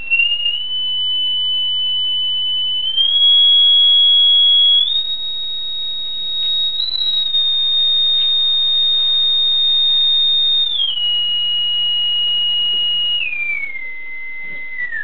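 A pure sine test tone from a signal generator played through a TV speaker while the generator's frequency is swept upward. The pitch climbs in small steps for about five seconds, holds, then steps down and falls sharply near the end, although the real frequency keeps rising: the recording folds back everything above about 4 kHz, an aliasing error in the camera's digital encoding.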